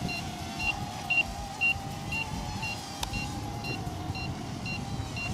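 Nano quadcopter's tiny motors whining at a steady, slightly wavering pitch, with a short high beep repeating about twice a second: the signal that headless mode is switched on.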